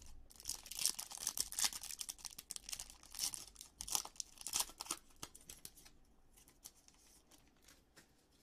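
Foil wrapper of a Topps Allen & Ginter Chrome trading-card pack being torn open and crinkled by hand, a dense crackling that dies away about five seconds in.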